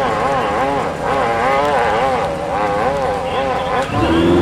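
Hillclimb motorcycle engine revving hard on the climb, its pitch rising and falling quickly about three times a second. Near the end a louder, steady engine note takes over.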